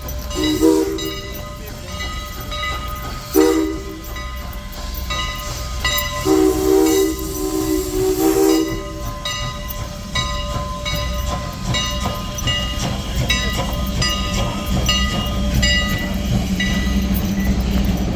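A steam locomotive's three-chime whistle (a Pennsy-style chime on Strasburg Rail Road No. 89) blowing two short blasts, then one long blast of about two and a half seconds, as the train pulls into the station. Under it is the steady low rumble of the train running.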